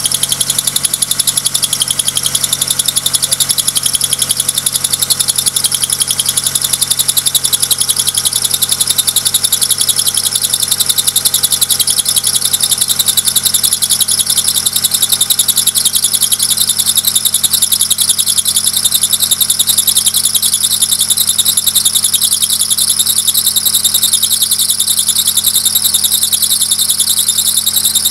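Honda Accord engine idling with a steady, high-pitched squeal from the alternator drive belt slipping on its pulley, a sign of a loose belt that the owner thinks may need adjusting.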